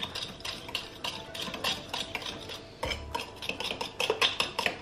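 A metal fork stirring and mashing a runny banana-and-egg batter in a glass bowl: quick, uneven clicks and taps of the fork against the glass over a wet stirring sound.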